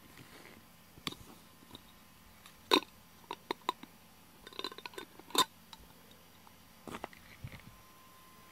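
A small glass jar and its lid being handled: a string of sharp clicks and knocks, two of them much louder about a third and two thirds of the way through.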